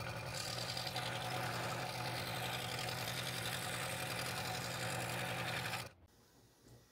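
Scroll saw running and cutting through a thin strip of dark hardwood: a steady buzz from the reciprocating blade, which cuts off suddenly near the end.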